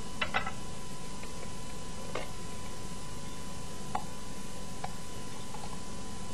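Steady hiss of an old recording with a faint steady tone, over a few faint clicks and soft taps as the seeds and core are pulled out of a green bell pepper by hand and dropped onto a plate.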